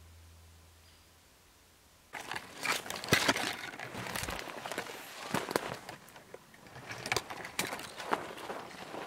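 Footsteps crunching through dry leaf litter and twigs on a woodland floor. They start suddenly about two seconds in, after a near-silent moment, and go on as an uneven run of crackles.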